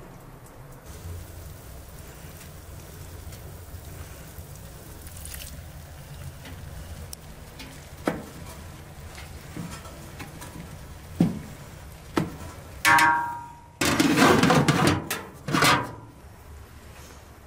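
Large aluminium cooking pot and lid: three sharp knocks of a spatula against the pot, then the metal lid rings and clatters loudly as it is set on the pot, near the end.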